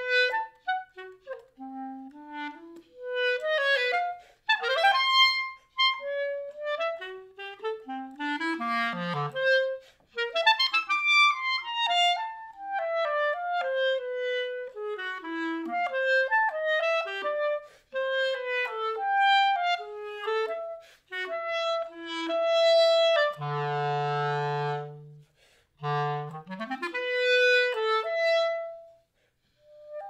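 Solo clarinet playing a contemporary piece: fast runs of short notes with wide leaps and some pitch slides up and down, then a held low note about three-quarters of the way through, broken by brief pauses.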